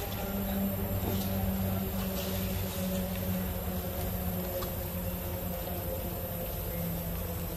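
A steady low droning hum with a few faint clicks.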